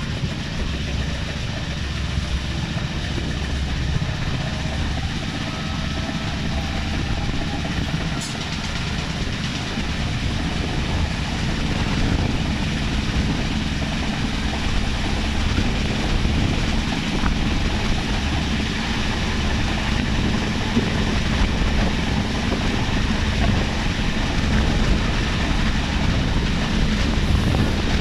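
Passenger train running along the line, heard from its open window: a steady rumble of wheels on rails with rushing air, growing a little louder about twelve seconds in.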